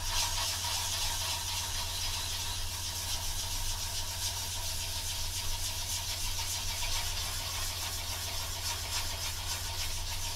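Fine-grit sanding sponge rubbed back and forth over a superglue-filled seam on a plastic model aircraft fuselage: a steady scraping hiss, smoothing the seam down flush.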